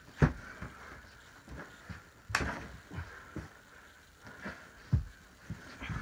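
Pillows being swung and striking in a pillow fight: a run of irregular soft thumps and whacks, three of them louder than the rest.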